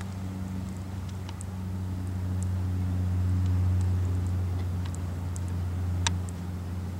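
A steady low machine hum, like an engine running in the background, swelling slightly mid-way. A few faint light clicks sound over it, with one sharper click about six seconds in.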